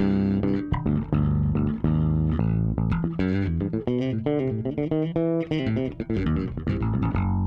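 Six-string Dingwall ABZ electric bass played through a Fairfield Circuitry Accountant compressor set at ratio 1 and pad 1 with a slight volume boost: a busy line of quick notes, with higher notes in the middle. The compression is noticeable but gentle enough to keep note definition.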